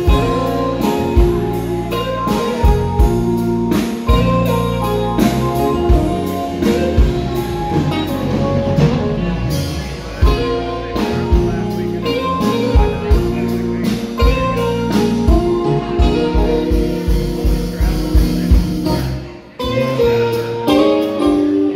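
A band playing music with guitar and drums, a steady beat under sustained guitar notes. Near the end it briefly drops out, then comes back in.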